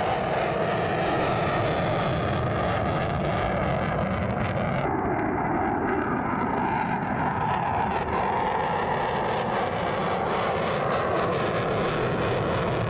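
Single-engine F-35A Lightning II jet climbing out after takeoff in afterburner, a loud, steady jet roar. The high hiss in it dulls for a few seconds in the middle, then comes back.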